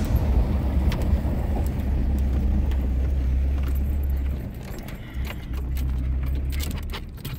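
Ford Ranger 4x4 driving up a rough dirt track, heard from inside the cab: a steady low engine drone with loose rattling and jangling over it. The drone eases off about four seconds in and picks up again a second later.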